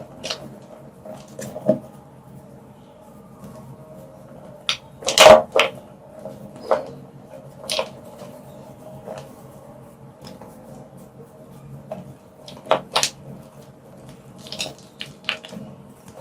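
Purple-dyed gym chalk being crushed: irregular, scattered crunches and snaps. The loudest comes about five seconds in, with a pair around thirteen seconds and a quick cluster near the end, over a faint steady hum.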